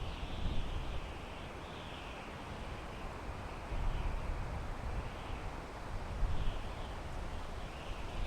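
Wind blowing through pine trees, a steady rushing hiss over a low rumble, swelling in gusts about four and six seconds in.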